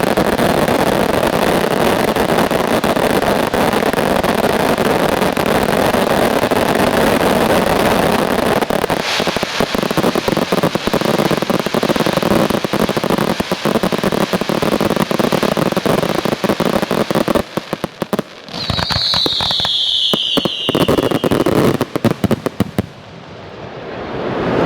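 Fireworks display: a dense barrage of crackling shells and bangs, then a few separate bangs with a falling whistle about three-quarters of the way through, and a short lull near the end.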